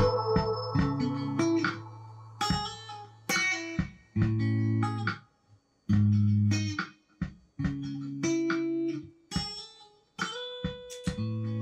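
Electric guitar, a home-built Jack Daniel's tribute guitar, playing slow soul phrases of single picked notes and chords, with short silent breaks between phrases.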